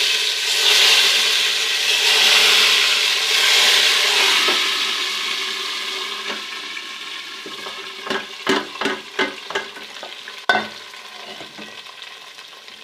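Hot ghee with golden-fried garlic (tarka) poured into cooked mustard-greens saag, sizzling loudly at first and then dying away over several seconds. In the second half come several sharp knocks of a spoon against the pot as the saag is stirred.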